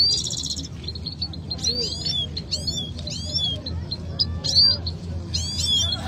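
Caged saira songbirds singing against each other: quick high chirps and short twittering phrases repeating every second or so, with a brief buzzy trill right at the start. A low steady hum sits underneath.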